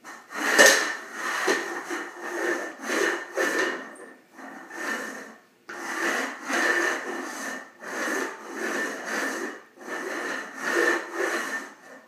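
Plastic bowl scraped and pushed across a tile floor in repeated rasping strokes, roughly one a second with a brief pause partway through, a ringing note sounding under the scrapes.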